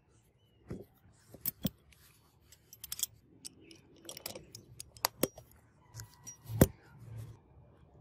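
Small metal parts of a butterfly knife clicking and clinking in the hands as the brass handles and pivot pins are fitted onto the steel blade: irregular light clicks, one sharper click late on.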